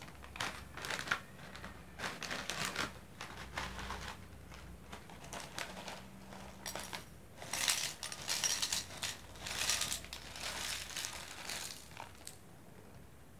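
Plastic snack packet crinkling as it is handled and opened, then small dry crackers poured out of it into a glass bowl, the rustling loudest for a few seconds past the middle.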